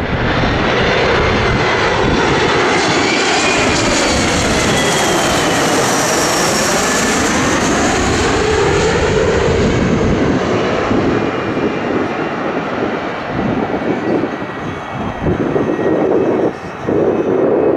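Twin-engine jet airliner on final approach passing low overhead: a steady rush and whine of its jet engines, the whine sweeping in pitch as it goes over, then easing slightly as it descends toward the runway.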